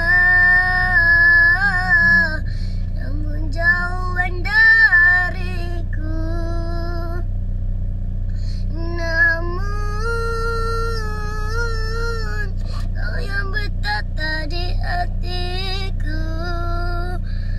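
A boy singing a Malay love song in a series of phrases, holding long notes with vibrato, with short pauses between the lines. A steady low hum runs underneath.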